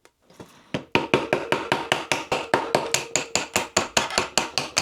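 A small folding knife blade being driven through a piece of wood to split it, struck in rapid, even blows about five a second, starting about a second in.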